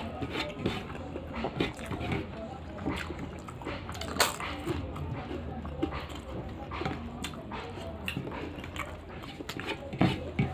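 Close-up eating sounds: chewing and lip-smacking with irregular crisp clicks and crunches, from eating rice and papad by hand, one sharper crunch about four seconds in.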